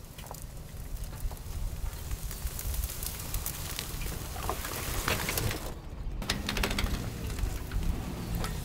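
Wind buffeting the microphone with a steady low rumble, along with rustling noise through the middle few seconds and a few light clicks.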